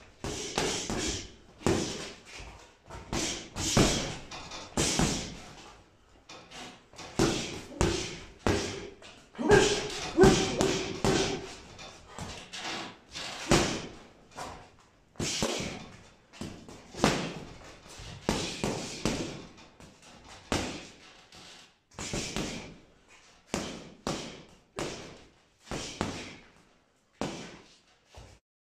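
Boxing gloves thudding into a 100 lb Everlast heavy bag, in flurries of punches with short pauses between them.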